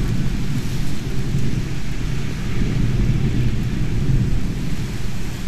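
Thunder rumbling low and continuously through the storm, over the steady hiss of rain.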